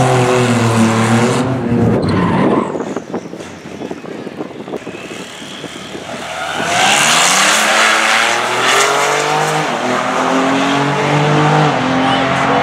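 Cadillac ATS-V twin-turbo V6 engines at a drag strip. First a car holds high revs in a burnout with its tyres squealing, then there is a quieter stretch. About six seconds in, the cars launch and accelerate hard, the engine note rising, dropping at each upshift and climbing again.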